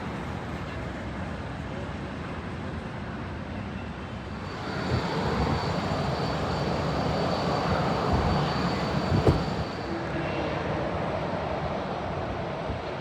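Airliner engines passing: a steady rumble swells about a third of the way in, with a thin high whine on top, then eases off near the end. There is a single brief knock about two thirds in.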